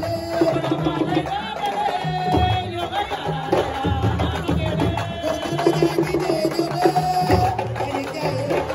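A woman singing into a microphone, long held notes with a wavering pitch, over a steady drum rhythm.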